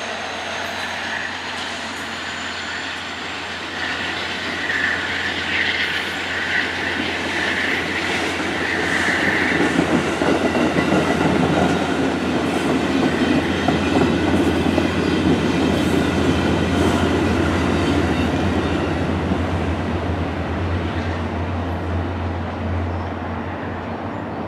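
VIA Rail passenger train rolling past at speed, its coach wheels running over the rails with a steady rumble and clicking over rail joints. It grows louder about ten seconds in and eases off near the end as the last cars go by.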